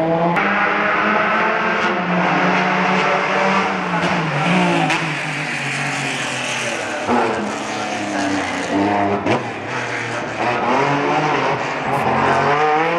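Historic rally car engines, a Porsche 911 among them, revving hard as the cars pass. The pitch rises and drops again and again through gear changes.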